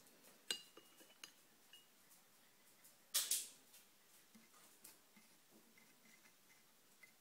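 Cutlery clinking against a dish while turmeric and coconut-oil paste is handled: a sharp clink with a short ring about half a second in, a lighter click soon after, and a louder brief scrape about three seconds in, then faint small ticks.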